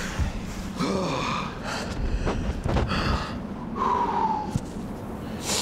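A rock climber breathing hard, gasping and grunting with effort while climbing a steep overhang, with a sharp breath near the end.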